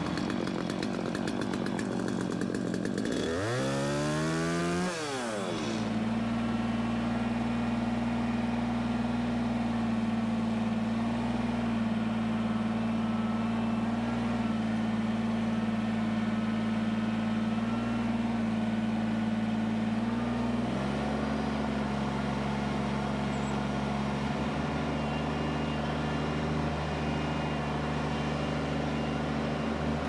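Gas engine of a portable bandsaw sawmill idling, then revving up about four seconds in and running steadily at high throttle as the mill cuts a log. Its note shifts slightly about 21 seconds in.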